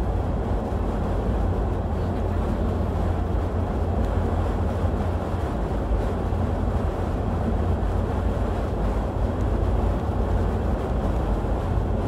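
Steady low rumble of road and engine noise heard inside a moving vehicle's cabin, its tyres running on a snow-covered highway.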